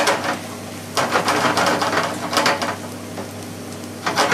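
A spoon stirring and scraping a buttery breadcrumb, onion and herb mixture in a hot pan, in two bursts of rasping scrapes, over a steady low hum.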